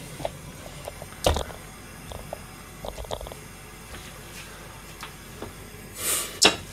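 Cookware being handled on a gas range: a sharp knock about a second in and a few light taps, then near the end a short hiss followed by a sharp click.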